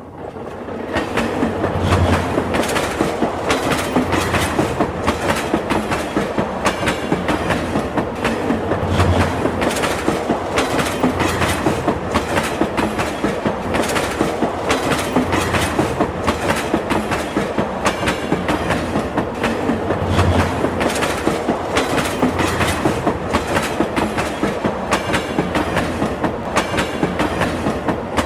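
Train running along the track with a steady clickety-clack of wheels over rail joints, about three clicks a second, and a few heavier low thuds.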